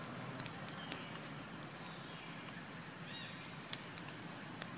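Faint, scattered crackles of dry leaf litter under a baby macaque's steps, over a steady outdoor background noise, with a few brief high chirps about three seconds in.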